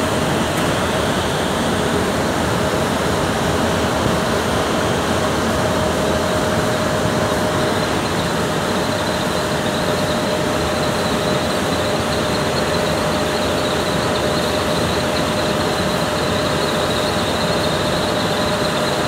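Floor-standing 20 HP air conditioner running with its compressor on: a steady rush of air from the blower with a constant hum. A high hiss grows a little stronger about halfway through.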